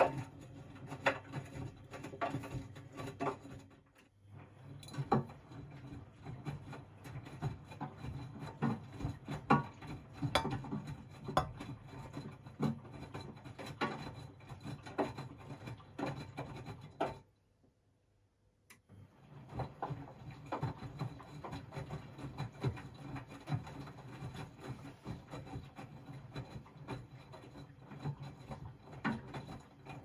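Miele W 426 front-loading washing machine tumbling its wash: the drum motor hums while the laundry swishes and knocks inside the turning drum. The drum stops briefly about four seconds in and pauses for about two seconds a little past halfway, as it changes direction, then starts turning again.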